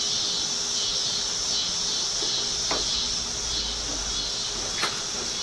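A steady, high-pitched chorus of insects, with two brief faint ticks partway through.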